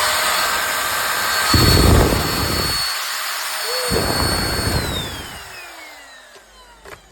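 MORCLIN 120W cordless handheld vacuum cleaner running with a steady high whine, with two bouts of low rumbling of air about two and four seconds in. Near five seconds in it is switched off and the whine falls away as the motor spins down.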